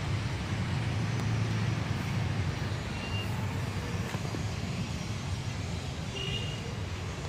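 Steady low rumble of distant city traffic outdoors, with two brief faint high tones about three and six seconds in.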